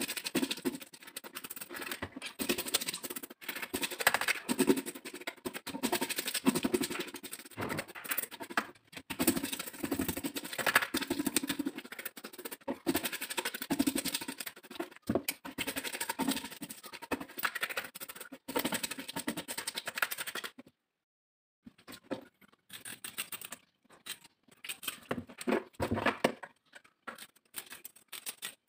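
Scales being scraped off a whole tilapia in quick, repeated scraping strokes. About two-thirds of the way in there is a short pause, then kitchen scissors snip sparsely as the fins are trimmed.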